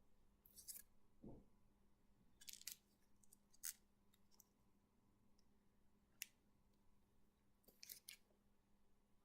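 Faint, brief rustles and clicks of comic books being handled, about five in all, with a soft low thump about a second in.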